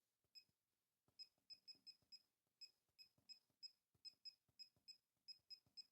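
Faint electronic key-click beeps from a laser projection keyboard, one short high pip per keystroke, about seventeen in an uneven typing rhythm as a sentence is typed on the projected keys.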